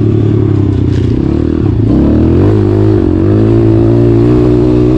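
Pit bike engine run hard at full throttle on a dirt trail, its note dipping briefly about two seconds in and climbing again.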